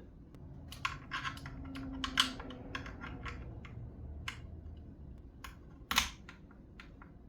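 Cable plugs being handled and pushed into the jacks of electronic drum pads: a string of irregular light clicks and taps, with one louder click about six seconds in.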